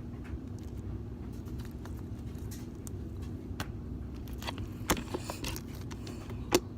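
Steady low hum with scattered small clicks and taps, a few sharper ones near the end.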